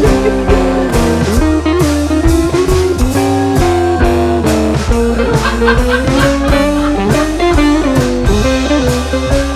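Background music: a guitar-led blues tune with bass and a steady drum beat.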